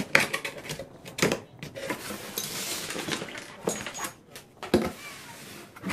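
Hard plastic toy pieces clicking and clattering as they are handled, with a stretch of rustling in the middle.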